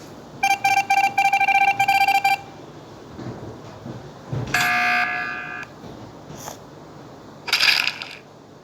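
A run of electronic beeps lasting about two seconds, a few short beeps then longer ones on the same pitch. A few seconds later comes a second, buzzier tone for about a second, and a short hissy burst near the end.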